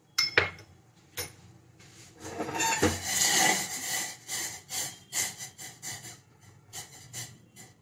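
Metal kitchen utensils scraping and knocking: crushed spices being scraped out of a steel mortar into a steel saucepan. A few sharp clicks, then a rasping scrape lasting about two seconds, then a run of short taps.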